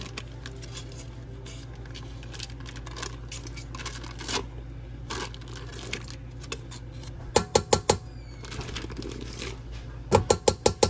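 Kitchen handling sounds while cream cheese is unwrapped and emptied into a mixing bowl: soft rustling and crinkling of the wrapper, with two quick runs of sharp taps, one about seven seconds in and one near the end.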